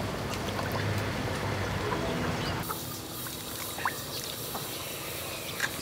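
Raw pork skin pieces being handled and dropped into a pot of water, with light splashes and wet sloshing.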